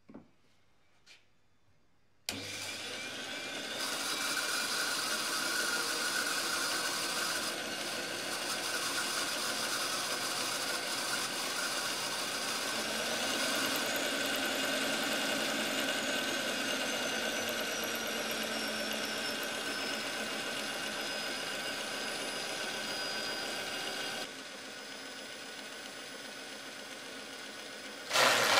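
A workshop machine's motor starts suddenly after two small clicks and runs steadily, with a mix of steady tones. Its level drops near the end, and a single loud clunk follows.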